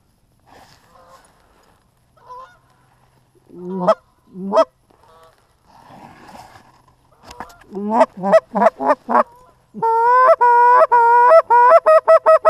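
Canada goose honking and clucking: two loud honks about four seconds in, a quick run of short clucks around eight seconds, then a loud string of drawn-out honks from about ten seconds on.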